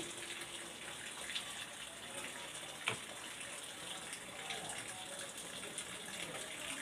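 Steady, even hiss of background noise with a single sharp click about three seconds in.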